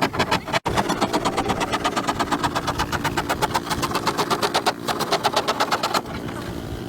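Small motorbike engine running steadily with a fast, even beat of firing pulses. The sound cuts off abruptly about half a second in, resumes at once, and turns softer near the end.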